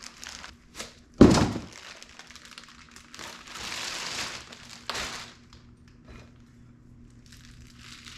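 Unboxing noise: a heavy thump about a second in, then a couple of seconds of packaging rustling that ends in a click.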